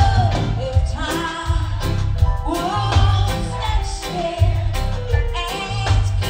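A woman singing a reggae gospel song into a microphone over a live band of bass guitar, electric guitar, drums and keyboard, with a bass line that comes in pulses.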